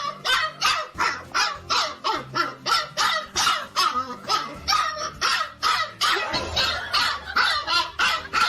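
A dog barking rapidly and without pause, about three barks a second.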